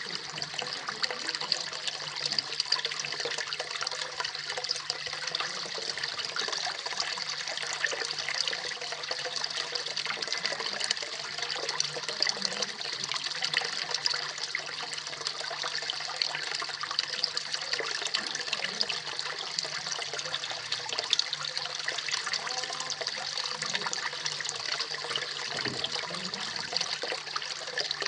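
Small waterfall splashing and trickling steadily into a koi pond, with a faint low hum underneath.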